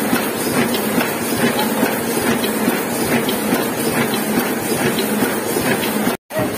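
Heidelberg KORS single-colour sheet-fed offset press running at speed, printing sheets, with a steady, dense mechanical clatter. The sound cuts out abruptly for a moment near the end.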